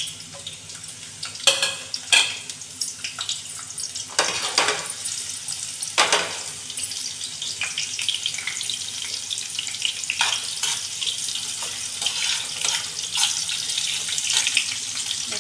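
Sliced onions frying in hot desi ghee for a tadka (bhagar): a steady crackling sizzle, with several sharper pops in the first six seconds or so.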